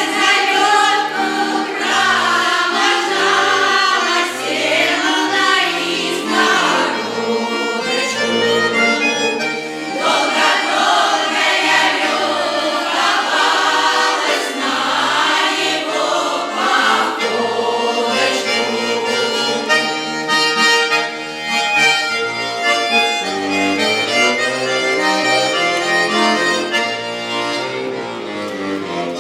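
A Russian folk choir sings pripevki (short humorous folk verses) to a lively accordion accompaniment. The accordion plays steady chords and runs, and the massed voices come and go over it.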